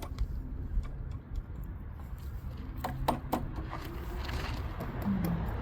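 A few scattered clicks and knocks of a wrench working on an old lawn mower's pull-starter, over low rumbling handling noise.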